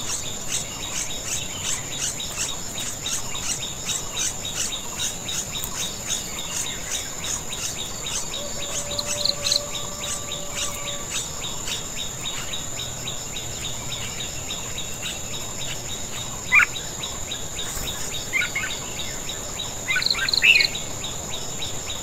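A steady, high-pitched insect trill with regular pulses several times a second, the pulses fading about halfway through. Short bird chirps break in a few times near the end, the loudest sounds here.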